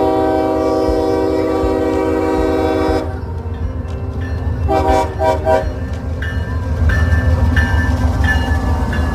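Locomotive air horn blowing one long chord blast of about three seconds, then three quick short toots about five seconds in, over the low rumble of the train rolling past, which grows louder toward the end.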